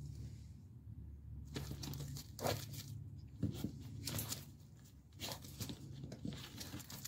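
A bull terrier and a puppy sniffing and shuffling at a wire pen on dry leaves: a run of short, scratchy rustling noises over a low steady hum.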